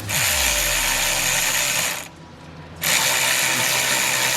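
Power ratchet running steadily while backing out the water pump bolts on an LQ4 6.0 V8. It stops for a moment a little after two seconds in, then runs again.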